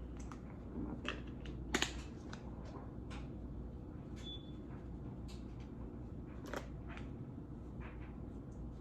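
Scattered light clicks and taps, a second or two apart, from handling a seasoning container while pepper goes onto steak, over a steady low hum.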